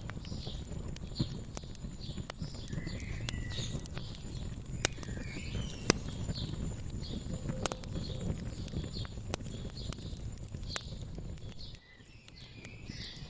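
Wood fire crackling, with a steady low crackle and sharp pops, the loudest about five and six seconds in, while small birds chirp over it in short repeated calls. Near the end the sound drops away abruptly and fades back in.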